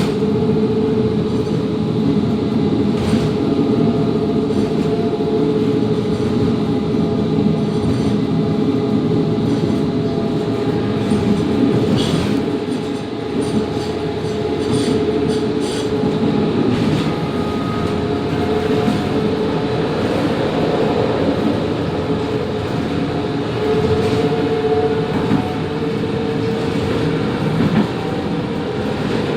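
Končar TMK 2200 low-floor tram running along the track, heard from inside: a steady electric motor whine of fairly even pitch over the rumble of wheels on rail, with a few sharp clicks.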